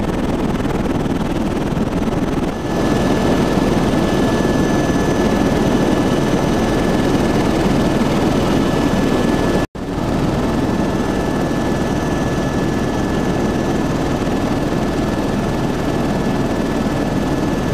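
Helicopter cabin noise: the steady drone of the engine and rotor with a thin high whine over it, broken by a split-second gap about ten seconds in.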